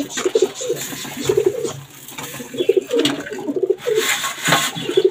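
Domestic pigeons cooing over and over, their calls overlapping. Between about three and a half and four and a half seconds in, a rushing rattle of grain is poured into a feeder tray.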